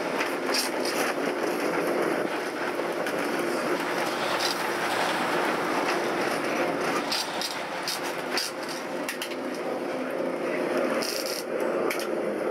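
Lisbon Remodelado tram running along its rails, heard from inside the wooden car: a steady running noise with a held tone, and scattered clicks and rattles.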